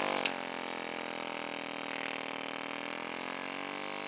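Powered guided-bend tester running steadily as its plunger presses a welded face-bend specimen into a U between the rollers. Its motor hum starts abruptly, sags a little in pitch partway through and climbs back near the end.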